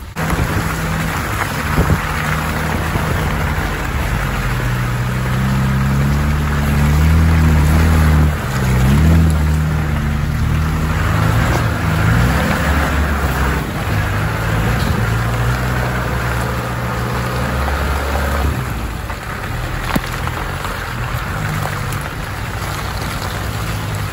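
Off-road 4x4's engine revving up and down under load. The engine note drops away about 18 seconds in.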